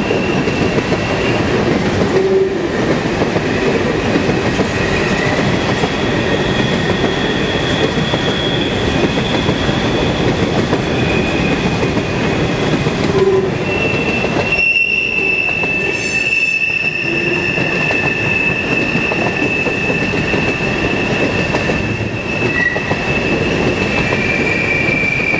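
Railroad cars rolling past with a steady rumble and high, thin wheel squeal: several squealing tones that come and go and shift in pitch as the cars go by.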